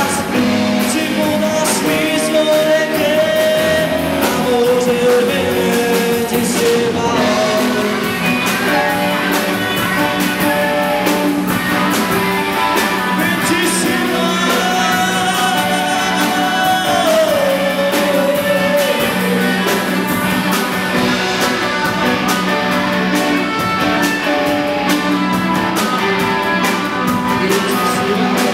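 Rock song with a singer over guitar and drums, a steady low note held underneath throughout.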